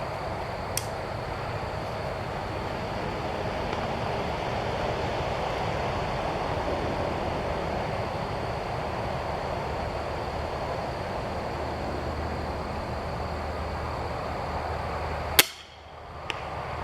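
Steady outdoor background noise, then near the end a single sharp crack of an Excalibur Matrix 405 crossbow firing a bolt, followed about a second later by a fainter click.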